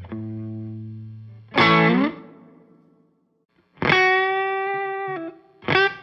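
Electric guitar played through a Morgan MV45 amp fitted with 6V6 power tubes. The master volume is full up so the overdrive comes from the power tubes. Blues single notes: a picked note rings and fades to silence about three seconds in, then a new note is held and quick riffing starts near the end.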